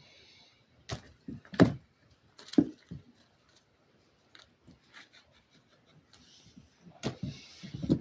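Irregular thumps and knocks of a Savannah kitten pouncing on and batting a dangled string toy on a rug, the loudest about a second and a half in, with rustling near the start and over the last two seconds.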